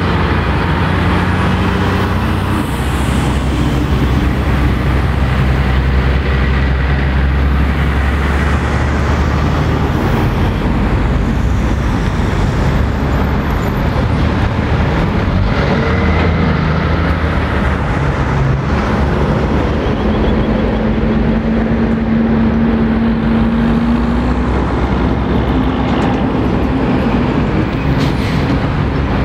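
Heavy road traffic: diesel semi-trucks, a tipper truck and cars passing in a steady stream, their engine notes mixed with continuous tyre noise. About two-thirds of the way in, one truck's engine note holds and climbs slightly.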